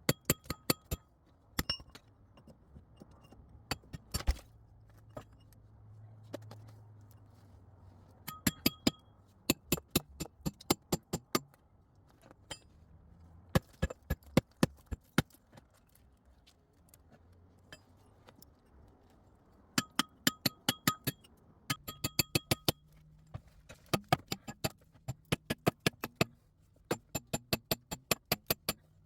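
A tool striking rock in quick bursts of sharp blows, some blows ringing with a clear high tone, with short pauses between the bursts.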